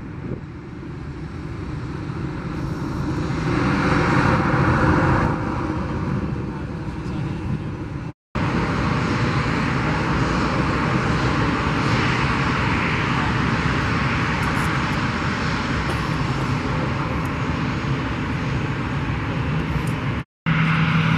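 Boeing 757-23N's twin jet engines at departure power, a steady jet noise that swells to its loudest about four to five seconds in. The sound drops out abruptly twice, at about eight and twenty seconds in.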